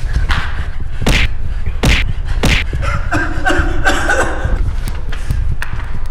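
Fight-scene sound effects: three sharp slap-and-punch hits in quick succession, followed by a brief pitched sound in the middle, over a steady low rumble.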